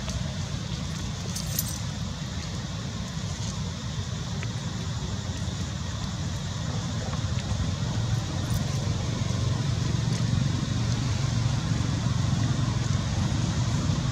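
Steady low outdoor rumble, growing a little louder after the middle. A few brief crinkles of a small plastic snack bag sound as a macaque handles it while eating.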